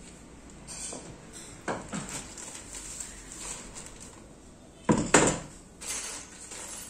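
Knocks and clatter of office-chair parts, the padded seat and hard plastic armrests, being handled and set down on a marble floor, with two sharp knocks close together about five seconds in as the loudest.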